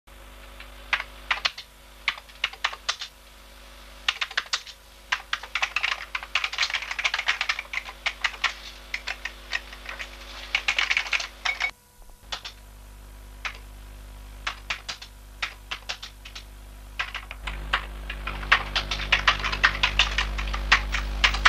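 Typing on a computer keyboard: quick runs of key clicks in irregular bursts, with a brief pause about halfway through. A low steady hum comes in near the end.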